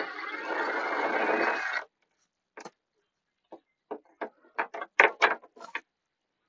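Tool working a fastener on a motorcycle's body panel: a dense mechanical rattle for nearly two seconds, then scattered sharp clicks of metal and plastic being handled.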